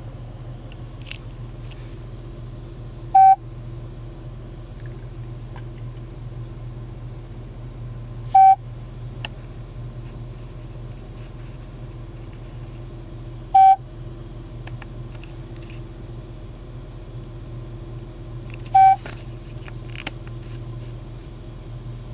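2007 Chevrolet Silverado's OnStar system sounding its connecting beep through the cab speakers, one short tone about every five seconds, four times, over a steady low hum. The call never goes through because the OnStar unit has been disabled.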